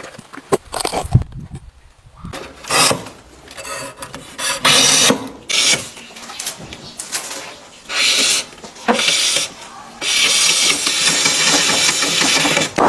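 Bamboo shoot husks being torn off in strips. There are a few sharp snaps and clicks at the start, then several short ripping tears, then one long continuous rip over the last few seconds.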